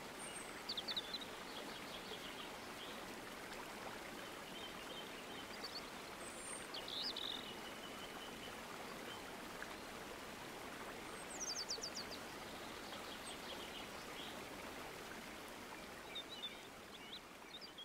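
Outdoor nature ambience: a steady wash of water, with small birds chirping and trilling several times, briefly each time.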